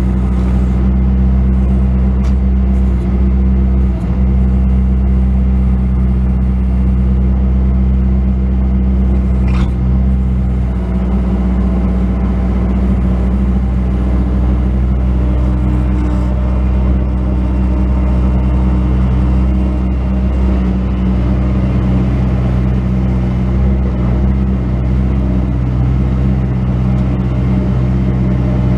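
Bobcat S185 skid steer loader's diesel engine running steadily, with a short sharp sound about ten seconds in.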